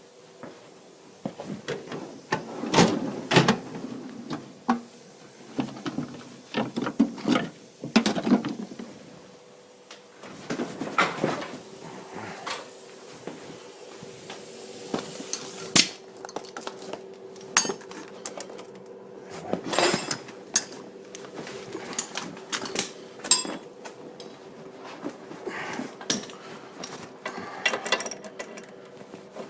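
Metal hand tools clinking and clanking irregularly as they are handled and set down against metal, with a few sharper knocks, over a faint steady hum.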